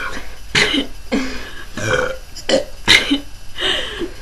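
Several short burps, one after another, brought up by gulped carbonated 7-Up soda.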